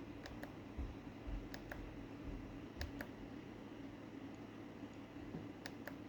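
Faint sharp clicks in close pairs, four times, from handling a small hobby-grade RC car and its transmitter while setting up a newly fitted receiver, over a steady low hum.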